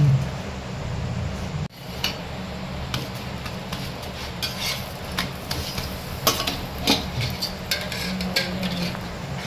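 Kitchen utensil sounds: a metal spoon clinking and scraping against cookware in scattered strokes over a steady low hum, with a sudden break about two seconds in.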